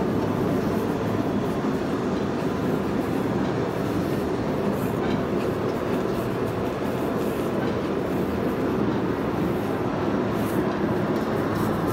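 Eagle 2000EBTWS turntable stretch wrapper running, with a steady mechanical rumble and hum as its turntable turns a load.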